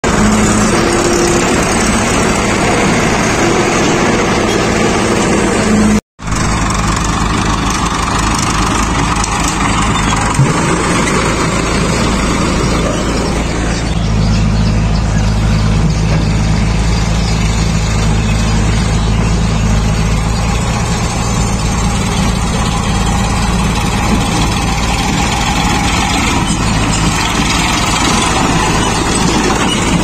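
Diesel farm tractor engines running steadily at close range. The sound drops out for an instant about six seconds in, and about fourteen seconds in the engine note changes to a deeper, steadier one.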